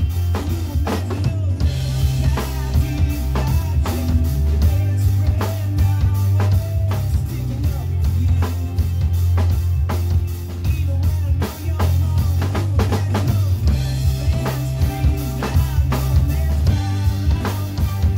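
Acoustic drum kit played along to a recorded rock song: bass drum, snare and cymbal hits in a steady beat over the song's instrumental backing.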